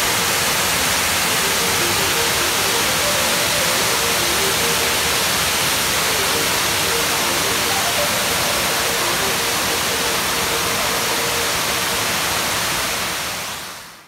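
Baklai waterfall's water falling and splashing into its pool: a loud, steady rush that fades out near the end.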